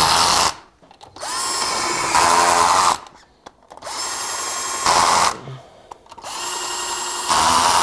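Cordless drill driving a socket, spinning lug nuts down onto an ATV wheel in about four short runs. Each run starts with a rising whine and then holds steady.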